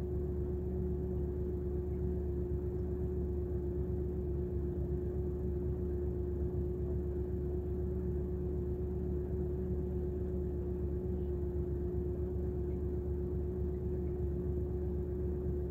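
Car engine idling, heard from inside the cabin as a steady low hum with one constant drone.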